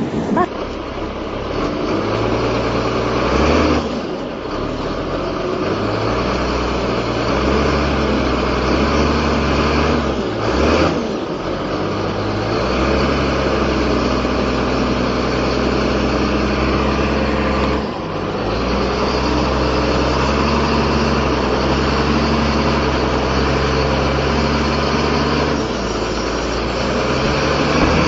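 Heavy vehicle's diesel engine running steadily, with its note dipping or shifting briefly three times.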